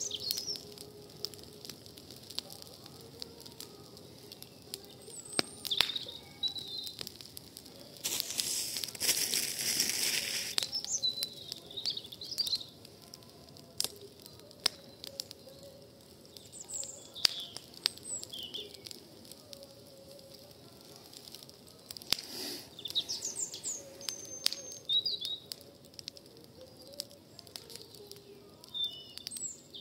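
Wood fire of pruned garden branches crackling in a fire bowl, with scattered sharp pops, while birds chirp now and then. A burst of rushing noise lasts about two seconds about a third of the way in.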